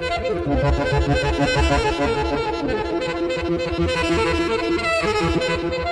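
Background music with a steady beat under a sustained melody.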